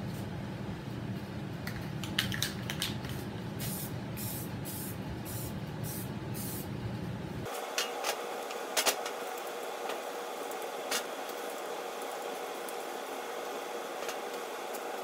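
Aerosol spray-paint can spraying primer in a quick series of short hissing bursts, about six in a row, with a few sharp clicks around them and more scattered clicks later.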